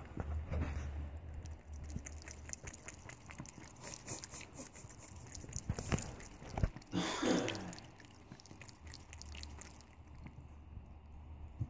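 Cat lapping from a thin stream of tap water running into a bathroom sink: quick wet clicks and drips throughout. One brief louder sound about seven seconds in.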